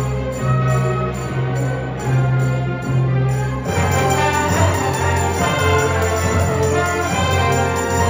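Youth symphony orchestra playing live, with strings, harp and brass sounding together. The music grows fuller and brighter about three and a half seconds in.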